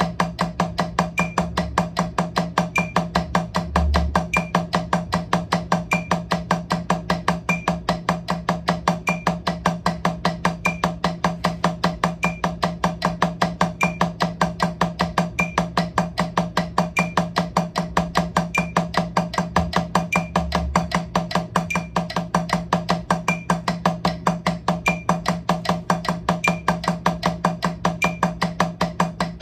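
Drumsticks playing steady alternating single strokes on a drum practice pad, eighth notes at 152 BPM, about five strokes a second, as an even, unbroken run of taps.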